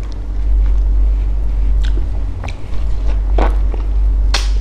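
Close-miked mouth sounds of eating soft fresh durian flesh: a few wet smacks and clicks while chewing, the loudest near the end, over a steady low hum.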